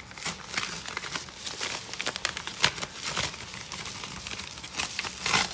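Kraft padded mailer envelope being handled, its paper and bubble lining crinkling and crackling in quick irregular bursts. The loudest crackles come about two and a half seconds in and again near the end.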